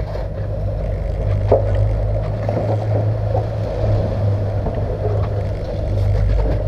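Twin outboard motors running steadily with the boat under way, a low even drone over the wash of water, and one short knock about a second and a half in.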